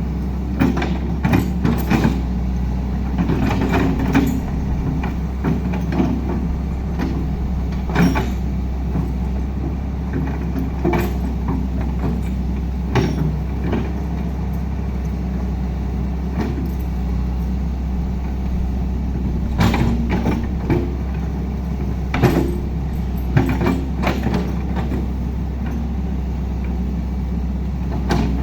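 Heavy diesel machinery running steadily, with a low hum, broken by frequent short knocks and clanks.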